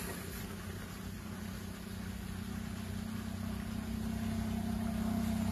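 Steady low hum of a running motor or engine, with no breaks, slowly growing louder.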